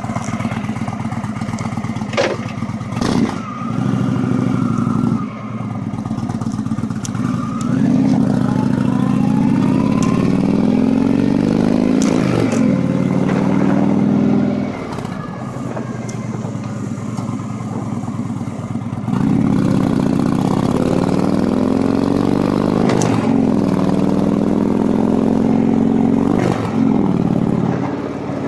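2014 Indian Chieftain's Thunder Stroke 111 V-twin running through Vance & Hines Turn Down mufflers while riding, the exhaust note rising and falling with the throttle. Louder pulls alternate with quieter stretches, and the note dips briefly several times.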